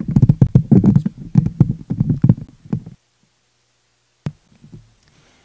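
Handling noise from a microphone being grabbed and repositioned on its boom stand, heard through that same microphone: a quick run of dull thumps and rubbing for about three seconds, then a single sharp click a second or so later and a couple of faint knocks.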